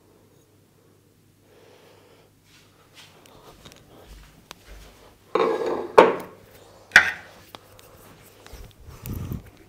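Hands working during a head massage: a loud burst of rubbing about halfway through, two sharp clicks about a second apart, and a dull thump near the end.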